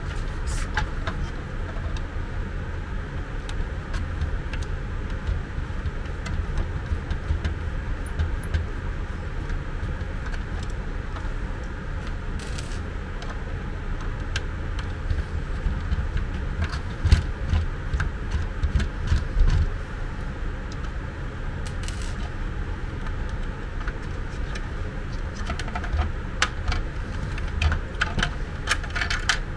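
Small clicks, taps and rattles of a screwdriver, screws and plastic housing parts being handled as a portable suction aspirator is taken apart. A steady low hum runs underneath.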